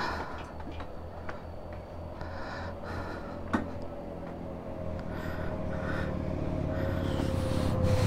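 Motorcycle engine running at low, steady revs, slowly growing louder toward the end.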